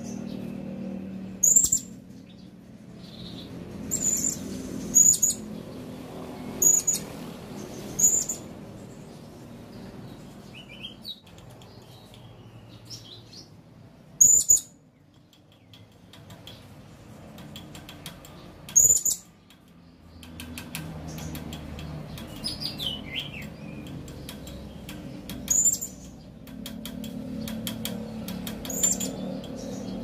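Male blue-crowned hanging parrot (serindit) calling: short, sharp, very high-pitched single notes, about nine of them at uneven gaps of one to several seconds. A few softer falling notes come between them.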